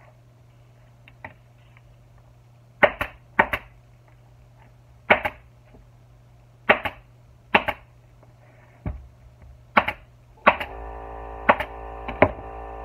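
Pneumatic staple gun firing about nine single shots, irregularly spaced, driving staples through a vinyl seat cover into a motorcycle seat's plastic pan.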